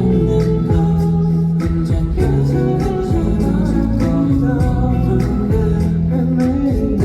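Live pop music played loud over a concert sound system: a song with a steady drum beat, sustained bass and keyboard tones, and a male lead vocal singing.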